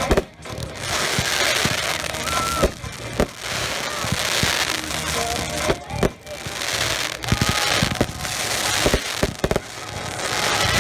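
Fireworks going off: a series of sharp bangs a second or two apart, with crackling hiss between them.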